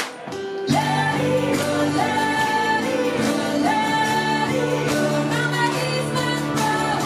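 Live band music: a woman singing lead over acoustic guitar and electric bass. The music drops briefly at the start, then the full band and vocal come back in under a second later and carry on with long held sung notes.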